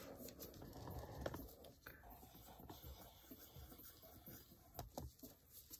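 Near silence: faint room tone with a few soft, scattered clicks and taps of handling, the most distinct a little over a second in.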